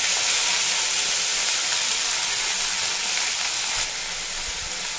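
Freshly added chopped punko greens sizzling in hot oil in a kadai. A steady hiss that eases a little about four seconds in.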